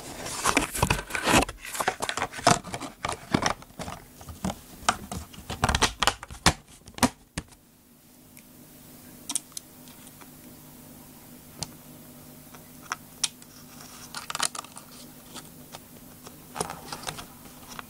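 Plastic RC car body shell being handled and fitted onto the chassis: a fast run of clicks and rattles for about seven seconds, then only an occasional click.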